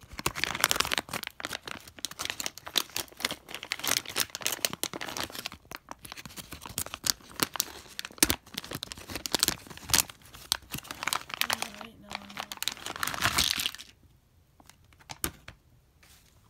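Clear plastic toy packaging crinkling and tearing as it is pulled open and handled, in dense crackling bursts. It goes much quieter about fourteen seconds in, leaving a few light clicks.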